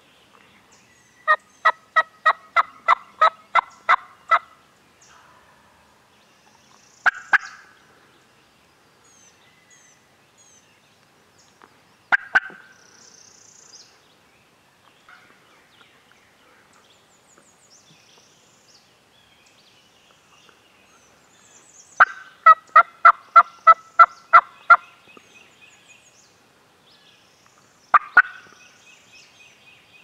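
Wild turkey calling: two runs of about ten evenly spaced yelps, about three a second, one near the start and one about two-thirds through. Shorter single sharp calls fall between the runs.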